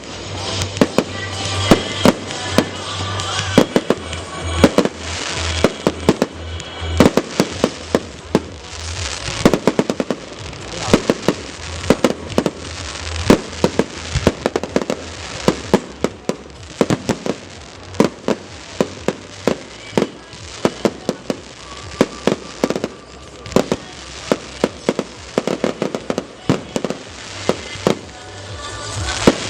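Fireworks display: a dense, continuous run of sharp bangs and crackling reports, several a second, with music playing underneath.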